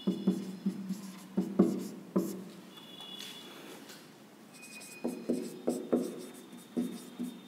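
Handwriting strokes: a series of short taps and scratches as words are written out, in two spells, the first in the opening two seconds and the second from about five seconds in.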